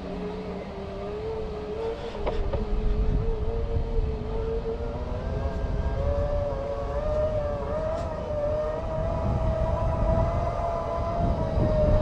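Segway x2's electric drive motor whining in a steady tone that slowly climbs in pitch, stepping up about halfway through, with a gusty rumble of wind and tyres underneath.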